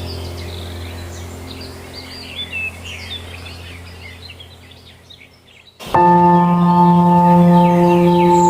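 Small birds chirping and twittering over a low steady musical drone that fades away. About six seconds in, loud sustained ringing, bell-like tones of relaxation music start suddenly and hold.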